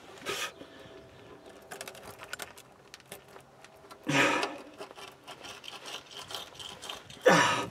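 Hands working a rusted exhaust hanger off a 2001 Chevy Astro van: rubbing and scraping, with a run of small clicks, and two louder bursts about four seconds in and near the end.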